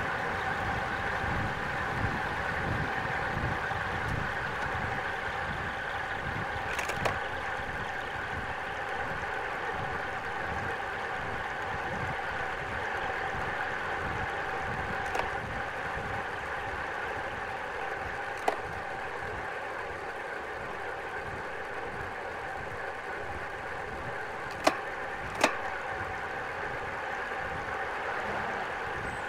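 Steady wind rush and tyre hum from a road bike rolling at speed, heard on the bike's action-camera microphone, with a handful of sharp clicks scattered through.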